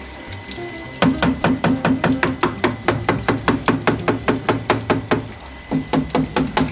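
Hammer rapidly tapping a water pre-filter and its PVC pipework, about five or six knocks a second with a short break about five seconds in. The knocking shakes loose dirt trapped in the filter while it is being cleaned.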